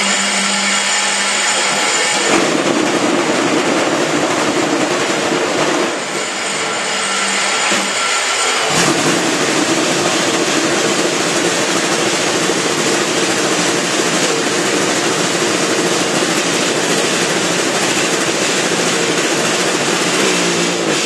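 Concrete block-making machine running: a loud, steady mechanical noise with a hum that changes pitch a few times, about two, six and nine seconds in.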